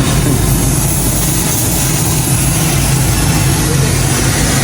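An engine idling steadily, with a strong low rumble.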